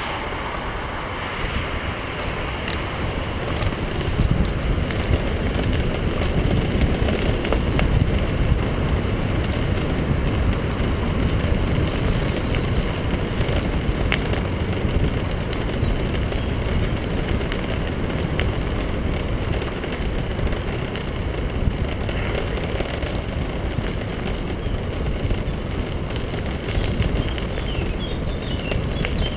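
Tyres rolling fast over a gravel path, a steady rumble mixed with wind rushing over the microphone, a little louder from about four seconds in.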